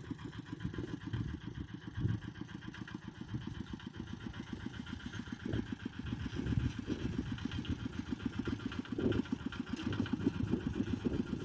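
Tractor engine running with a rapid, even firing beat, swelling louder several times as it works and growing a little louder near the end.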